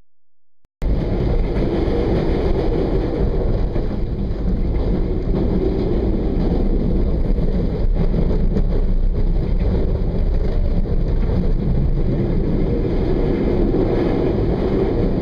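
Steady running noise of a regional train heard from on board, a continuous low rumble from the moving train, cutting in abruptly about a second in.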